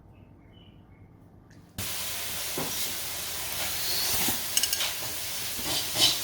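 Food hitting a hot oiled pan and sizzling: a loud hiss that starts suddenly about two seconds in, with scattered crackles and pops.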